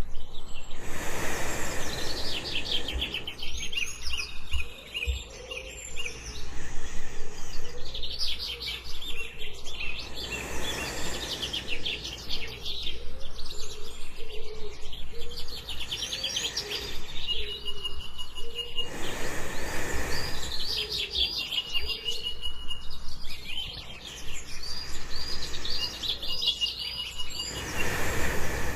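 Jungle birds chirping and trilling densely and without pause, layered over a steady low background. About every nine seconds a soft, broad whoosh of breathing swells and fades.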